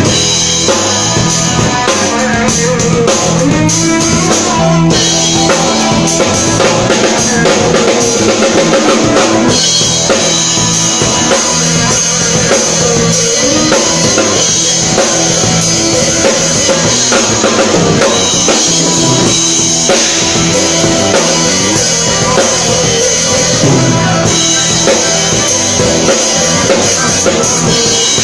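Drum kit played loudly in a solo, busy kick-drum and snare strokes with rimshots, over sustained pitched notes in the low range.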